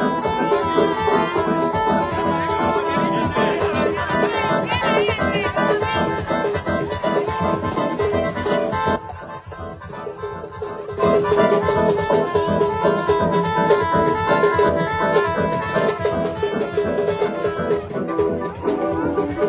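Loud instrumental music playing. It drops to a much quieter passage for about two seconds about nine seconds in, then comes back at full level.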